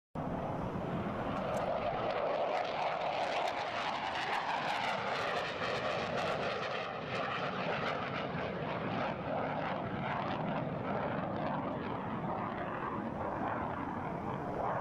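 Jet aircraft engine noise: a continuous loud rush with a slowly sweeping, phasing tone running through it.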